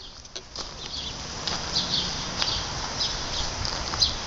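Footsteps crunching along a gravel and grass path, roughly two steps a second, over a steady hiss.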